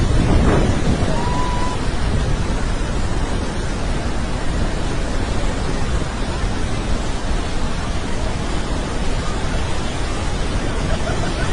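Steady, dense roar of the Iguazu Falls: a mass of falling water making an even noise across the whole range, with faint distant calls or voices showing briefly about a second in.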